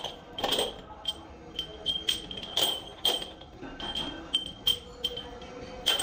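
Metal tractor pins clinking as they are picked from a pile and dropped into a metal pan: irregular metallic clanks, about two a second, each with a short ring.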